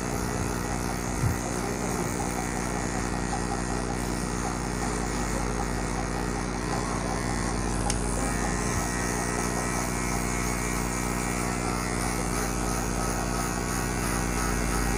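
Electric hair clipper running with a steady buzzing hum as it is worked up the side of the head over a comb, cutting hair. A single light knock about a second in.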